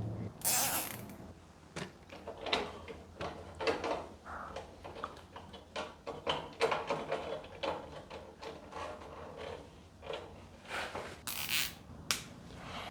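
Irregular rustling, scraping and light knocking, like things being moved and handled in a small room.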